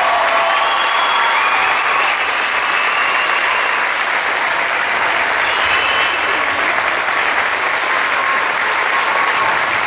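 Large audience applauding steadily, with scattered voices calling out and cheering over the clapping.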